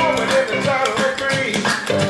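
Music playing: a song with a singing voice over a beat of sharp, frequent clicks.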